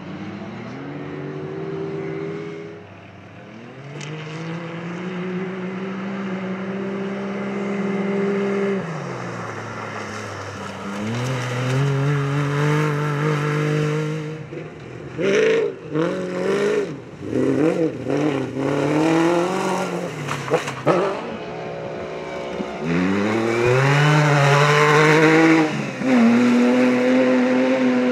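Off-road rally vehicles' engines under hard acceleration through mud. There are several long pulls with the pitch climbing and then dropping at each gear change, and a stretch of quick on-off throttle bursts in the middle.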